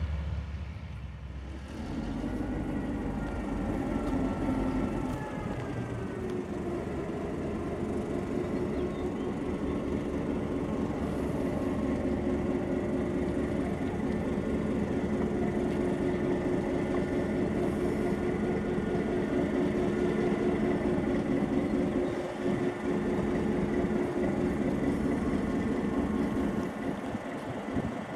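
Diesel locomotive running and moving slowly at low speed, a steady engine hum, with faint high sliding squeals in the first few seconds.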